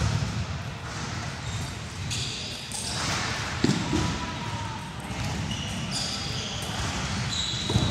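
Table tennis hall sounds: scattered clicks of celluloid table tennis balls bouncing and short shoe squeaks on the wooden floor, over a low background din.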